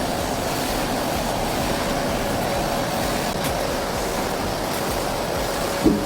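Loud, steady machine noise, an even rushing sound with a faint hum through it. A brief higher-pitched sound cuts in near the end.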